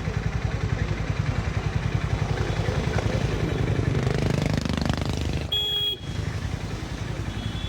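Harley-Davidson X440's single-cylinder engine running on the move, a steady low pulsing with road noise, picking up revs around four to five seconds in. About five and a half seconds in, a brief beep-like tone sounds for about half a second while the engine sound drops away.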